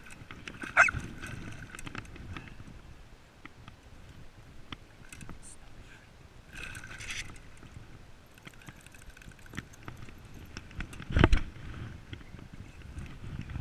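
A landing net with a salmon in it being handled in shallow water: water sloshing and small knocks and rattles of the net frame. There is a sharp knock about a second in and a heavier thump near the end.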